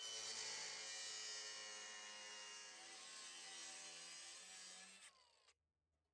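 A small power tool running steadily with a high whine, then stopping about five seconds in.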